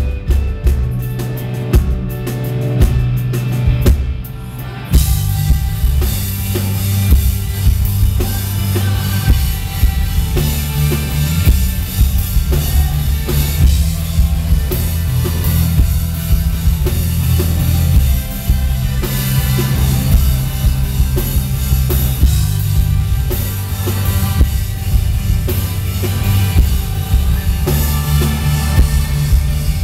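Live rock band playing a song, with drum kit, bass and keyboard. About five seconds in, the cymbals and full band come in and the music fills out.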